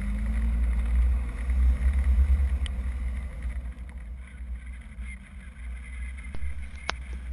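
Vehicle and wind noise picked up by a camera mounted outside on a car's roof: a heavy low rumble, strongest in the first few seconds, with a couple of faint clicks near the end.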